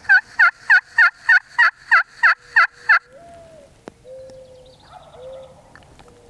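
A turkey call run as a string of about ten loud hen yelps, evenly spaced at about three a second for three seconds, then a faint distant gobble from a Merriam's gobbler answering.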